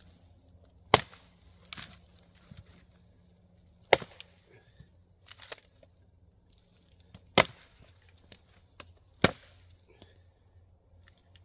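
Axe splitting Douglas fir firewood: four sharp cracks of the axe striking and splitting rounds, a few seconds apart, with lighter knocks of split wood between them.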